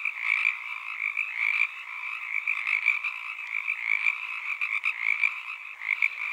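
A dense, unbroken chorus of many frogs calling together, in a higher and a lower layer of pitch, with a fast shimmering pulse throughout.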